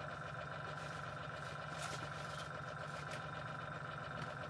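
A steady low machine hum with a thin, constant high whine over it, and a few faint light taps or rustles as the airbrush hose is handled.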